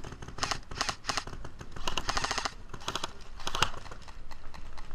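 Airsoft guns firing in several short rapid bursts of quick, sharp shots.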